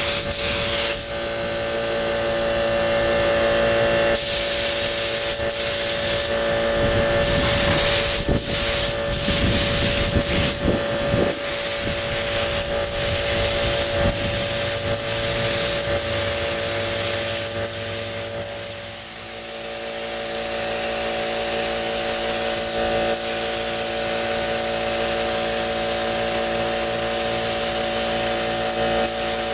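Compressed-air paint spray gun hissing as white paint is sprayed onto a boat hull, the hiss cutting out and resuming several times as the trigger is released and pulled. Under it runs the steady hum of an air compressor.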